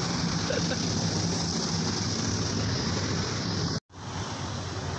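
Steady hum of a nearby motor vehicle's engine running, with an even background din. It drops out to silence for a moment near the end.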